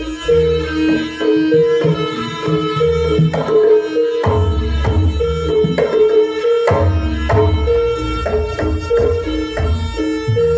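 A live band plays an instrumental passage. Hand drums tap out a quick pattern over sustained melody notes and a heavy bass beat.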